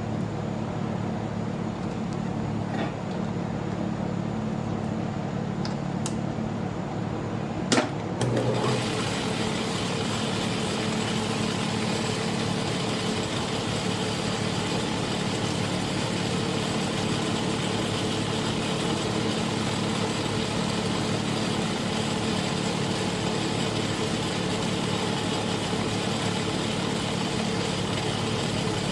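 Small lathe's electric motor running steadily, turning down a bushing. A sharp click about eight seconds in, after which a louder, even hissing noise joins the hum.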